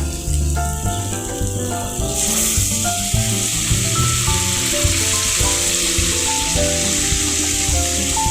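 Food sizzling as it fries in a pan, the sizzle starting suddenly about two seconds in and then continuing steadily, over background music with a steady beat.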